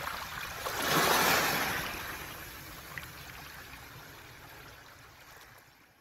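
Sea wave washing over a pebble beach: a surge of rushing water about a second in, then a long wash that dies away and fades out near the end.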